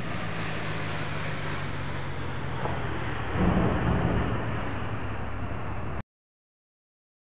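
Steady hum of lathe-shop machinery, with a louder stretch of metal handling noise about three and a half seconds in as the test-fitted steel part is pulled off the turned spigot; the sound cuts off suddenly about six seconds in.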